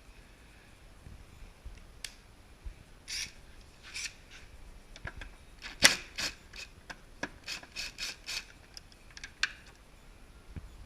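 Rust being scraped by hand off rusty metal under a car, around a gas line. It comes as a series of short scraping strokes, scattered at first and then quicker and more even later on, with one sharper scrape about six seconds in.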